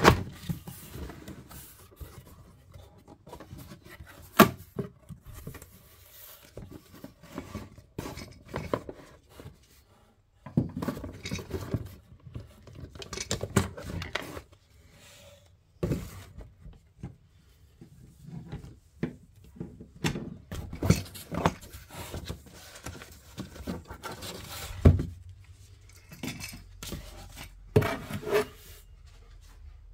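Cardboard box being opened and a random orbital sander with its coiled power cord lifted out: rustling cardboard and packaging with scattered knocks on a wooden bench, two of them sharper, about four seconds in and near twenty-five seconds.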